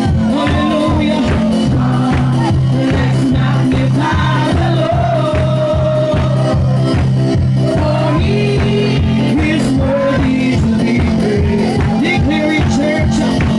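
Live worship music with singing over a steady beat and bass.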